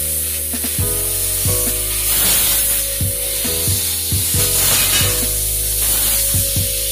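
Fiber laser tube cutting machine cutting a square steel tube: a steady spraying hiss and sizzle from the cut, over a steady machine hum.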